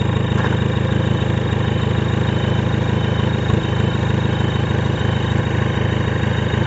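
Off-road 4x4's engine running steadily with a fast, rough throb.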